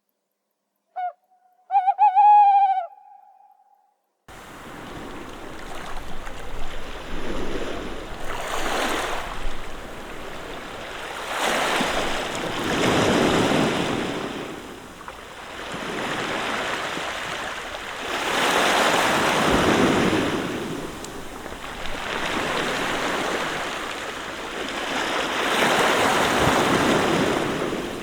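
Tawny owl hooting: a short note, then a longer quavering hoot over a silent background. From about four seconds in, sea waves washing over a pebble beach, swelling and receding roughly every six seconds.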